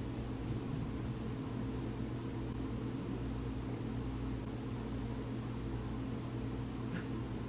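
Steady low mechanical hum with a faint hiss, the constant drone of household machinery in a carpeted room, with one faint short sound near the end.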